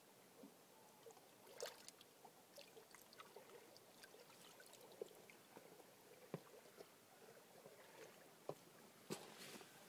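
Near silence: faint room tone with scattered small clicks and taps, a few slightly louder near the end.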